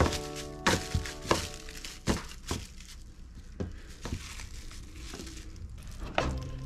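Plastic cling film crinkling as hands press and smooth it into a plastic food container, with a few sharp clicks and taps as the container is handled on the counter.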